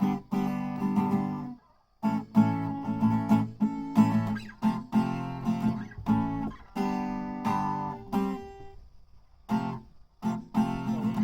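Acoustic guitar strummed in chords, with two brief pauses, about two seconds in and about nine seconds in.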